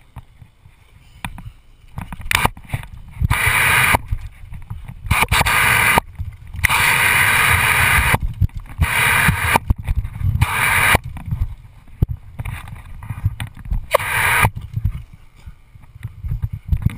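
Garden hose water spraying in a string of short bursts, each lasting about one to two seconds, onto a wooden deck and onto English bulldogs biting at the stream. A low rumble with scattered knocks runs underneath.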